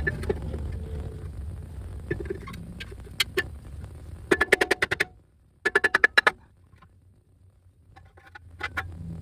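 Two short bursts of rapid metallic clicking, each under a second long and about a second apart, from a tool at work on a vehicle's brake hardware; a low steady hum fades away in the first seconds and comes back near the end.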